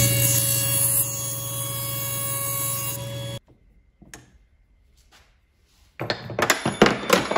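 Table saw running and cutting thin plywood, a steady motor hum that stops abruptly about three and a half seconds in. A few faint clicks follow. About six seconds in a drill press starts up, its motor humming with a burst of clattering.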